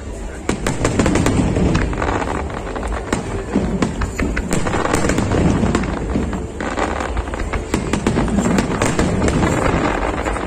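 Aerial fireworks display going off, with many rapid bangs and crackles following close on one another.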